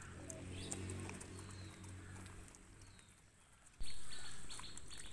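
Faint birds chirping over a low steady hum, with a sudden louder sound about four seconds in that fades away over a second.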